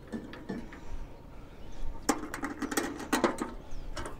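A run of sharp metallic clicks and clatters about two seconds in, with one more knock near the end, as the stainless-steel lid of a Magma Cabo gas grill is unlatched and lifted open.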